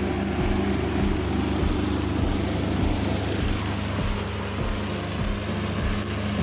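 Used 11 HP Iseki diesel engine of a flail mower running steadily as the mower cuts low grass.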